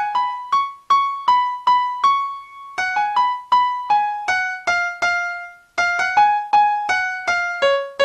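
Intro music: a keyboard melody of short, quickly fading notes, about three a second, ending on a lower note that rings on.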